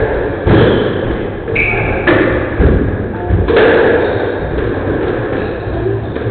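A squash rally: the ball is struck by rackets and smacks off the court walls in a series of sharp thuds a second or so apart, with short high squeaks from shoes on the wooden floor.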